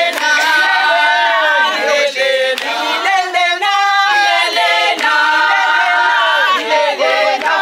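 A group of people singing together unaccompanied, many voices holding long notes in harmony and moving between them.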